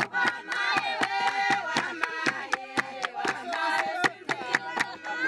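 Singing voices over a steady percussive beat of about four strokes a second.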